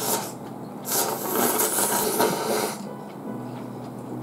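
A person slurping noodles: a short slurp at the start, then a long slurp about a second in that lasts around two seconds.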